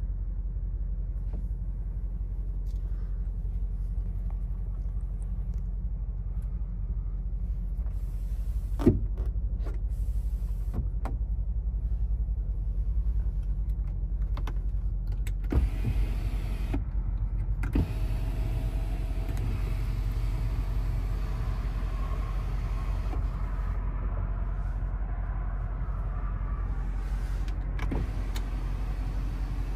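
2024 Mercedes-AMG G63's 4.0-litre biturbo V8 running steadily with a low rumble. Four sharp clicks are heard, and a faint whine comes in over the second half.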